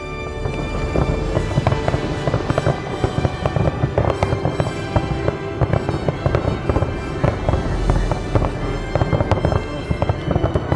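Aerial fireworks shells bursting in a dense, rapid run of loud bangs and pops, with music playing underneath.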